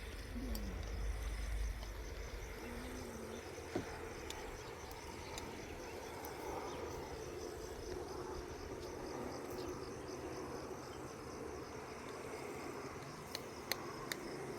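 Crickets chirping in a fast, even pulse, with a few faint clicks.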